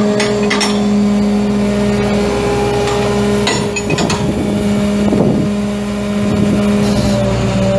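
Isuzu 6HK1 7.8-litre inline-six turbo diesel running steadily, with a few short knocks and rattles partway through.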